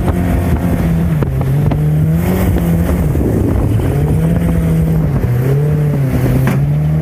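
Mercury outboard jet motor running with the boat under way at about 20 mph, its pitch dipping and rising again several times.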